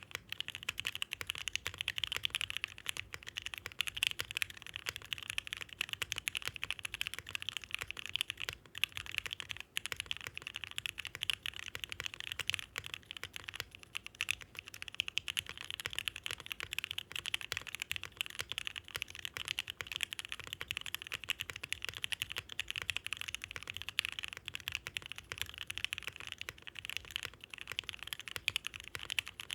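Continuous typing on a Bakeneko mechanical keyboard with Gateron Ink switches mounted in an FR4 full plate, a fast, irregular run of keystrokes. The switches are lubed with 205g0, including the top of the slider rails to dampen top-out, and fitted with 0.15 mm films.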